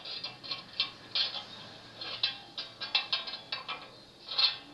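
Crowbar prying and bending the sheet-metal visor above a garage gate: a run of irregular metallic clicks and creaks, a few each second.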